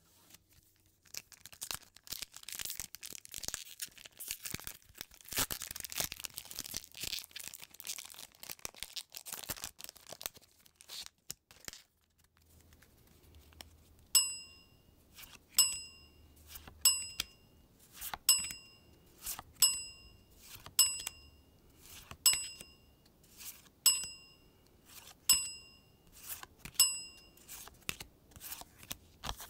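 A foil trading-card booster pack crinkling and tearing open for about twelve seconds. Then about ten short, bright ringing dings come at an even pace, roughly one every second and a half, as the cards are shown one by one.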